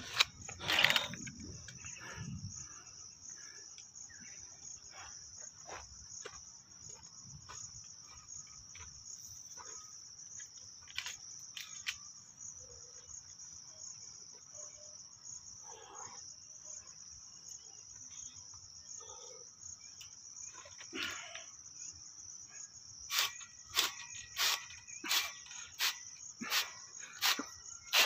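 Insects chirring, a steady high-pitched drone. Two loud sudden sounds come in the first second, and near the end a run of short sharp sounds repeats about twice a second.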